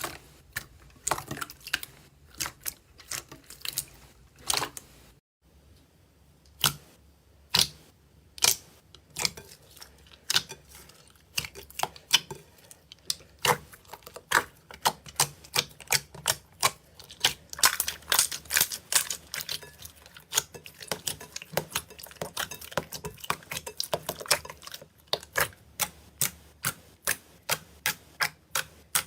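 Slime being pressed and stretched by hand, trapped air popping out in a long run of sharp clicks, about two or three a second, with a short pause about five seconds in.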